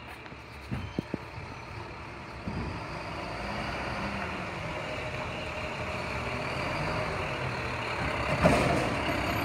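Automated side-loading garbage truck's diesel engine running as the truck drives up and draws closer, growing steadily louder, with a short sharp noise near the end as it pulls alongside the cart.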